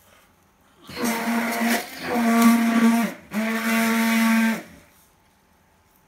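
A man blowing his nose hard into a paper tissue: three long blows, each a second or so, with a steady, buzzing pitch.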